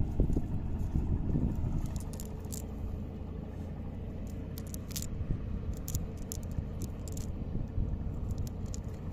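Fishing net being handled by hand: the mesh rustles and scrapes, and its sinker weights click against each other in scattered small clicks over a steady low rumble.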